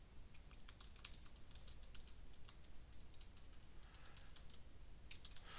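Faint typing on a computer keyboard: quick runs of keystrokes for the first three seconds or so, a pause, then a few more keys near the end.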